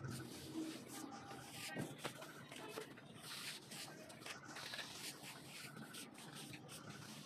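A straight-edge rule scraped along fresh cement plaster on a wall, giving a faint rasping scrape in irregular strokes with small knocks of the bar against the render.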